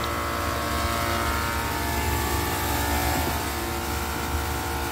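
Soft-serve ice cream machine running steadily in its heat-treatment mode, a constant machine hum with several steady tones over it.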